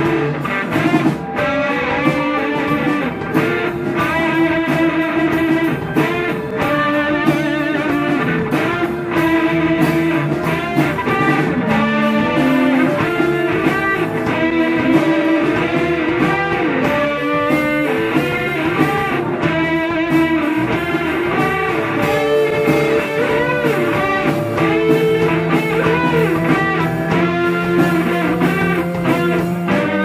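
Live rock band playing an instrumental passage, the electric guitar to the fore over drums and bass.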